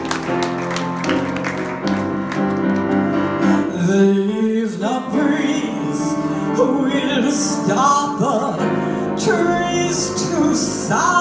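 Grand piano playing, joined about four seconds in by a woman singing into a microphone, her voice sliding between notes.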